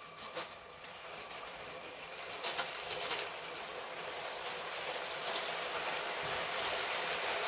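Lego City 60197 passenger train with sixteen wagons, pulled and pushed by two motors, rolling over plastic track: a steady rattling of wheels on rails that grows louder as the train comes closer, with a few sharp clicks.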